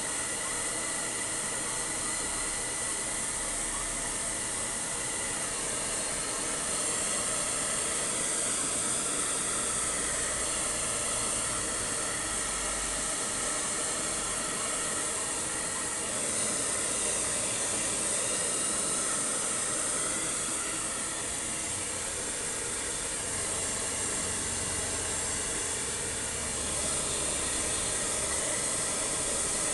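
Hand-held hair dryer running steadily, blowing a continuous hiss of air into a husky puppy's coat.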